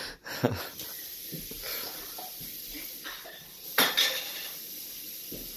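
Dishes and cutlery clinking and knocking, with a sharp knock a little before four seconds in, over a steady hiss.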